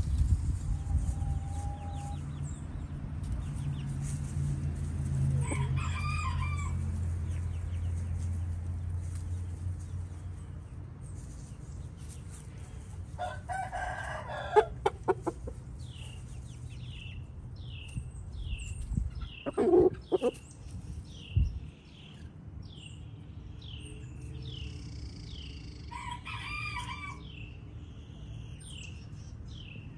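Roosters crowing several times, with crows about six seconds in, around fourteen seconds, just before twenty seconds and near the end. From about halfway on, a small bird gives a short chirp roughly once a second, and a low hum dies away after the first third.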